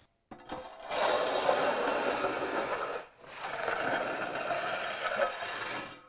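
Magnesium bull float sliding over freshly poured wet concrete in two long scraping strokes, with a short break about three seconds in: a floating pass over the fresh slab.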